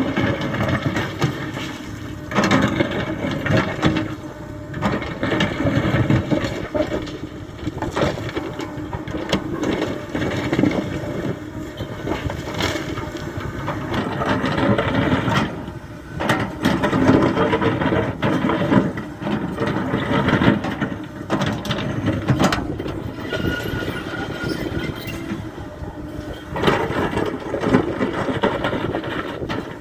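Kobelco SK75 mini excavator's diesel engine running under working load, its level rising and falling, with repeated scraping and knocking as the bucket works the road-bed fill.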